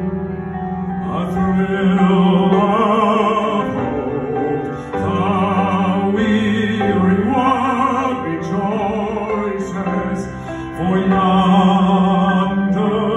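Male singer singing in long sustained phrases with a strong vibrato, in a classical, opera-like style, accompanied by piano and band. The voice comes in about a second in and swells louder near the end.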